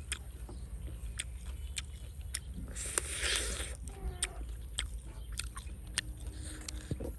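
Someone eating roasted duck: close chewing and biting with scattered sharp clicks, and a louder bite about three seconds in.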